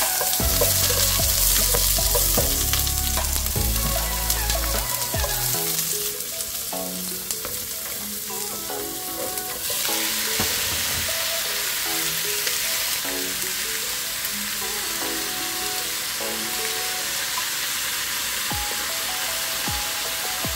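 Onions and garlic sizzling in hot oil in a pot while a spoon stirs them; about ten seconds in the sizzle changes as cut raw chicken breast pieces fry and are stirred in the pot.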